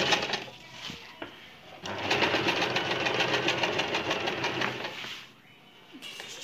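Electric sewing machine stitching a bias-cut strip as a facing along a blouse edge, with an even rapid needle rhythm. It runs in two spells: briefly at the start, then after a pause of about a second and a half it runs steadily for about three seconds before stopping.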